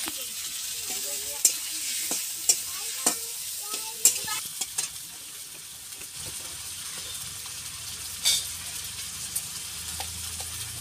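Tomatoes and onions frying in oil in an iron kadai, with a steady sizzle, while a metal spatula scrapes and knocks against the pan several times in the first five seconds and once more about eight seconds in.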